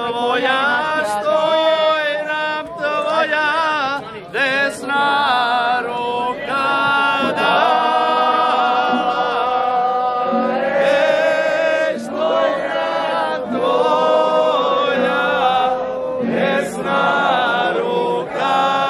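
A group of voices singing a traditional Slavonian folk song together, in long held notes with a wavering pitch and short breaks between phrases.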